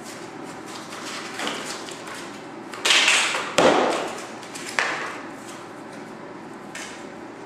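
Packaging being handled during an unboxing: a few short scraping swishes, the loudest about three seconds in, with a sharp click between them and a fainter swish near the end.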